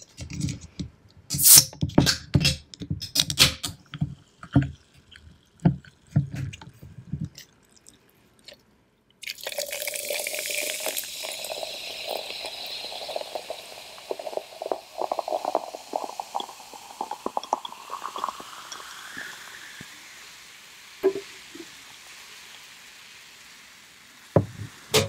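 A few seconds of knocks and clicks as the can and glass are handled. Then a fizzy drink is poured from a can into a glass jar: a hissing pour whose pitch rises steadily as the jar fills. The fizz then settles and fades, with a thump near the end.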